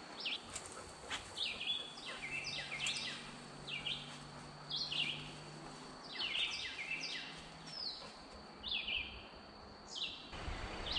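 Songbirds singing: short, high chirping phrases, each stepping down in pitch, repeated every second or two.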